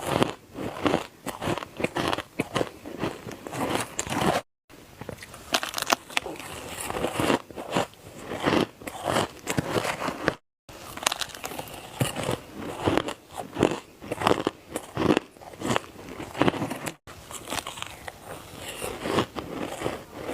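Ice being bitten and chewed close to the microphone: a rapid, irregular run of loud crunches and crackles. It breaks off for a moment three times where one clip cuts to the next.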